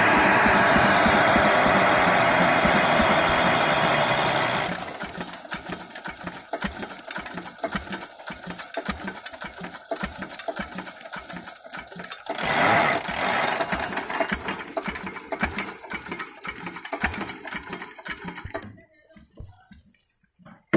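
Single-cylinder stationary diesel engine running and driving a flat belt to a homemade well-digging winch: loud and steady at first, then after about five seconds quieter, with a rapid even mechanical clatter and one louder swell midway. It dies away about two seconds before the end.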